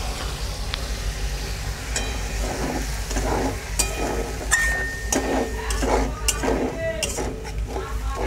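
Metal spatula stirring and scraping a thick masala paste around an aluminium kadai as it sizzles. The strokes come about twice a second, with a few sharp clicks of metal on the pan.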